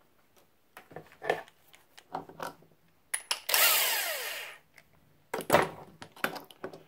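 Metal clinks of a gear puller being fitted over a Model T transmission gear, then a corded power tool, an impact wrench, runs briefly on the puller's screw about three seconds in and spins down with a falling whine as the puller slips off the gear. A loud metal clank follows.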